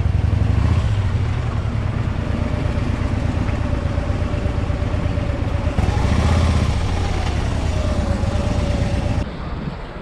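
Harley-Davidson Electra Glide's 1690 cc V-twin engine running at low speed with its characteristic pounding exhaust. The revs rise briefly about six seconds in, and the sound drops away sharply near the end.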